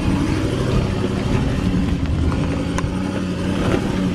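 Toyota Land Cruiser 200's V8 engine running at a steady pitch as the SUV crawls up a dirt track, with a few sharp clicks over it.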